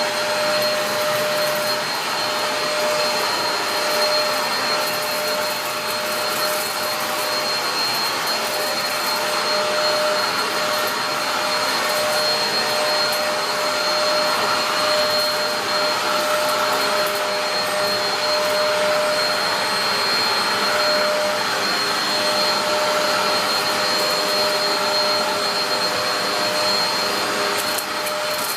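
Dyson DC03 upright vacuum cleaner running steadily: a constant rush of air with a steady whine on top.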